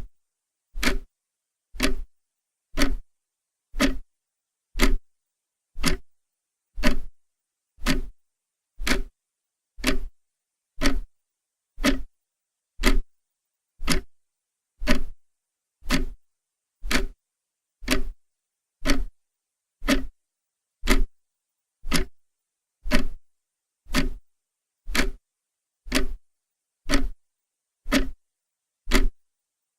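Clock ticking steadily, one sharp tick about every second, with silence between ticks.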